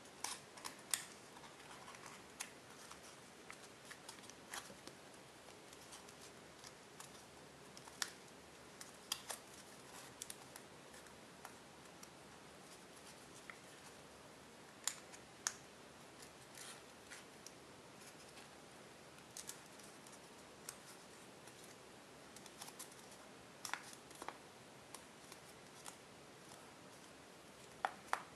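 Tissue-foil origami paper crinkling and crackling as it is folded and creased by hand, in irregular sharp crackles over a faint steady hiss, a few standing out louder, the loudest near the end.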